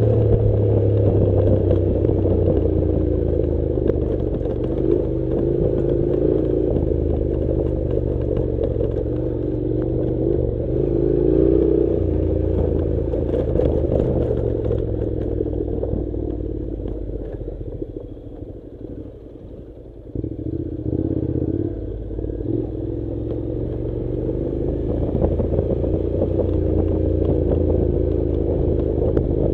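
Honda NC700's parallel-twin engine running, with stones and gravel clattering under the tyres on a rocky track. The engine sound fades for a few seconds past the middle, then comes back suddenly.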